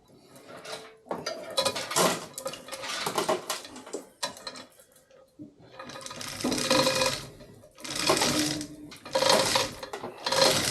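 Repeated bursts of rapid metallic rattling and clatter: one lasting about three seconds, then several shorter ones about a second each.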